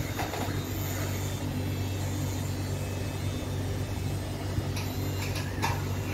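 A pen-style tattoo machine runs with a steady low hum while the needle works on skin.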